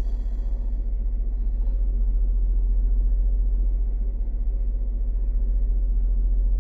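Car engine idling steadily, heard from inside the cabin as a constant low rumble, with the alternator charging in the normal range.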